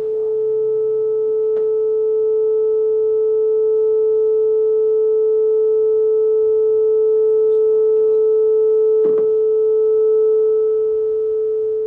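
Loud steady electronic tone held at one pitch with faint higher overtones, with a soft click about a second and a half in and another about nine seconds in.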